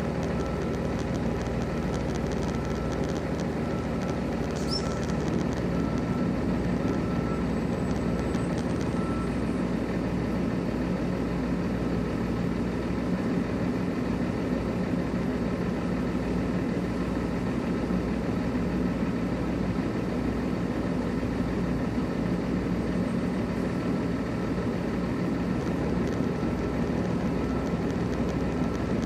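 Heavy diesel tractor-trailer engine running at a steady idle-like drone while the rig backs slowly, with an intermittent high beeping, typical of a backup alarm, over roughly the first nine seconds.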